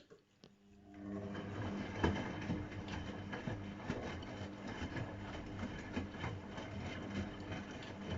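AEG Öko-Lavamat 693 washing machine, mid boil wash, starting up after a couple of faint clicks: about a second in its motor sets the drum turning, a steady hum with irregular clattering and knocking.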